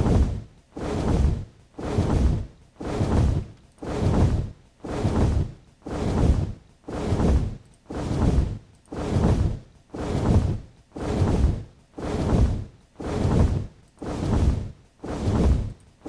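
Designed dragon wing flap sound effect played in a loop: a heavy whoosh with deep low end, repeating about once a second, each flap swelling up and then dropping off. It is dry, with no reverb.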